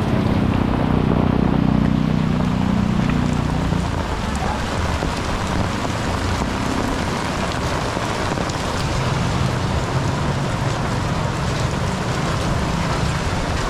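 Heavy rain falling on a flooded street, a steady dense hiss. A motorcycle engine runs close by for the first few seconds, and a lower engine hum comes in again about nine seconds in.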